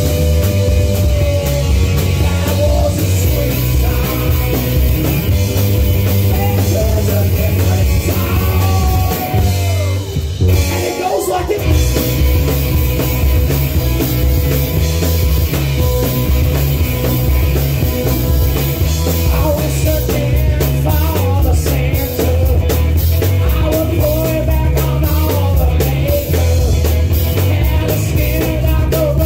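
Live rock band playing loudly: drum kit, electric guitar and amplified acoustic guitar. The low end drops out briefly about ten seconds in, then the full band comes back in.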